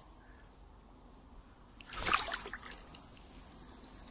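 A brief rustling swish about halfway through, from handling of the fishing rod and chest-mounted camera, followed by a faint steady hiss.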